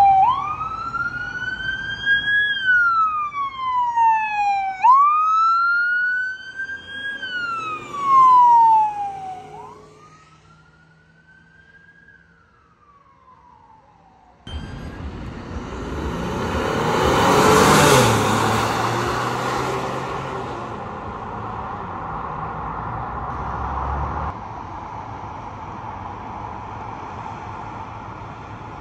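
Police car siren wailing, sweeping slowly up and down about every two and a half seconds, then fading away. After a quiet stretch, the sound changes abruptly to road noise as a vehicle passes close by, followed by steadier traffic noise.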